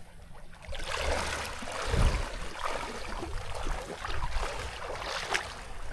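Water sloshing and splashing, with many small splashes and a low thump about two seconds in.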